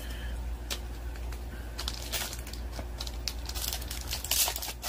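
Magic: The Gathering trading cards and their plastic sleeves being handled and flipped through: scattered light clicks and rustles, busier from about halfway in, over a low steady hum.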